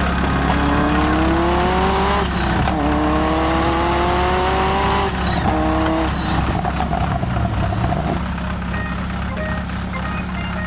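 Vehicle engine sound revving up in three slow rising sweeps over a steady low drone, then levelling off.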